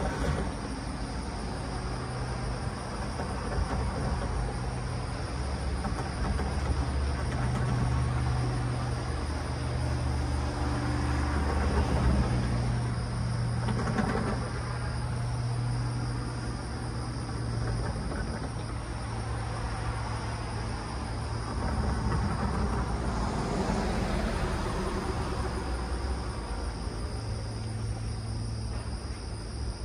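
Steady low engine hum that swells and eases, with a few vehicles passing on the road, each rising and then fading.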